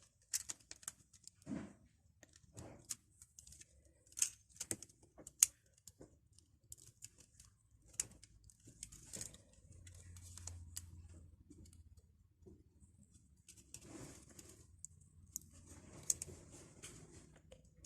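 Small irregular clicks, taps and scrapes from the plastic parts of a Nokia 2730 mobile phone being pressed and pushed back into place by hand during reassembly.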